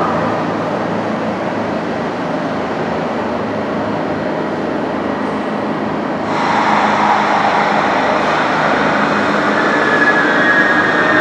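Steady mechanical running noise like a vehicle or train, growing louder about six seconds in, with a thin high whine near the end.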